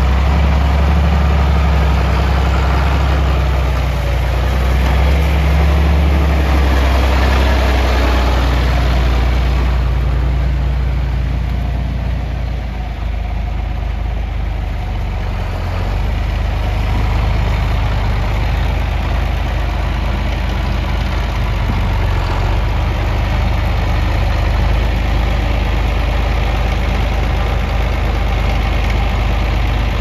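John Deere 4620 tractor's six-cylinder turbocharged diesel running through its upright exhaust stack, pulling under load as the tractor drives off and puffing smoke. Louder for the first ten seconds or so, then it settles to a steadier, slightly quieter run.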